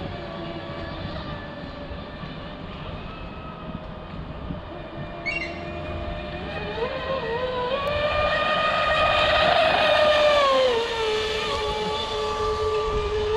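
Brushless RC speedboat's electric motor whining at speed, its pitch and loudness climbing from about seven seconds in to a peak and then dropping back near the end.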